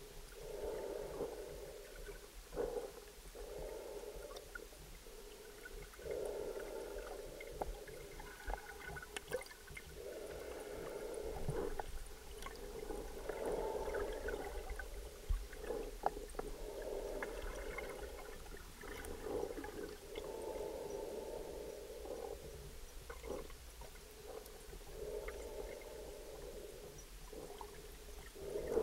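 Muffled underwater sound heard through a camera's underwater housing: a gurgling, bubbling wash that swells for a couple of seconds and fades, over and over, with scattered sharp clicks.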